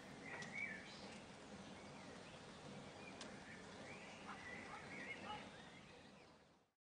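Faint outdoor ambience with small birds chirping: a few short calls about half a second in, then a longer run of chirps around four to five seconds in. It cuts off abruptly near the end.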